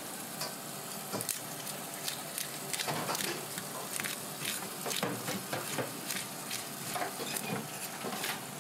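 Metal fish scaler scraping the large scales off a blue fish, a quick series of irregular rasping strokes with scales clicking off against the steel sink.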